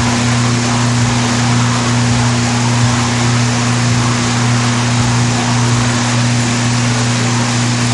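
Steady, loud machine drone: a constant deep hum with a second, higher steady tone over an even hiss, unchanging throughout.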